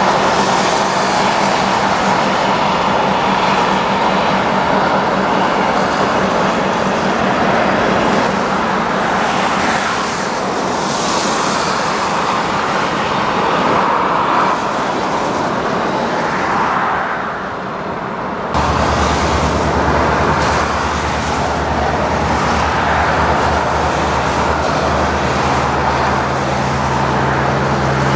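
Diesel locomotive engine running steadily as the freight train moves along the track. About two-thirds of the way through, the sound changes abruptly to a lower, steadier engine drone.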